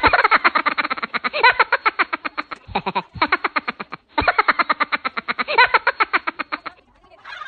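Novelty sound effect or music laid over the video: a fast run of clipped, pitched pulses, about ten a second, that breaks off briefly about four seconds in and stops shortly before the end.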